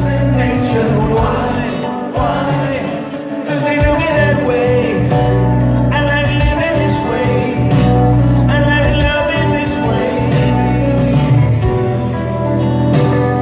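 Live rock band playing a pop song, with a male lead vocal singing in phrases over keyboards, guitar, bass and drums.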